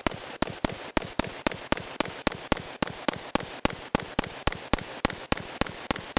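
Semi-automatic rifle fired in rapid, steady succession, about four shots a second, in a magazine dump meant to heat the barrel and its connection points and seat the barrel in the upper receiver. The firing stops at the very end, leaving a fading echo.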